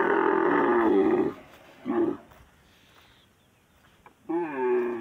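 Dromedary camel bellowing with its head thrown back: one long loud call lasting about a second and a half, a short one about two seconds in, and another call starting near the end.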